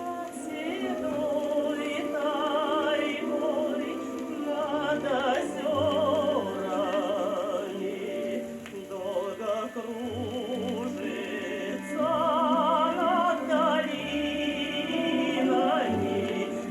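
Music played from an old Soviet gramophone record: a melody with strong vibrato over a full accompaniment.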